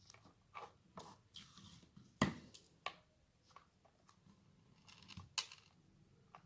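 Faint crinkling and a few sharp clicks of small acupressure magnets being handled and pressed onto a finger, the loudest click about two seconds in and another near the end.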